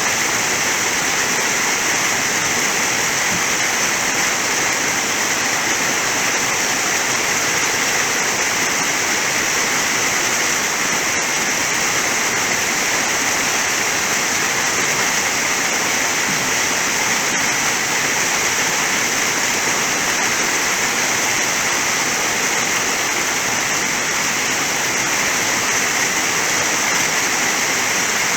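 Waterfall rushing steadily and loudly close by, an even wash of falling water with no change.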